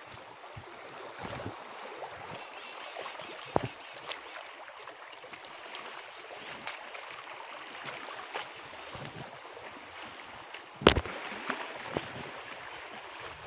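Small waves lapping and washing against shoreline rocks, a steady noise of moving water, with a few sharp knocks, the loudest about eleven seconds in.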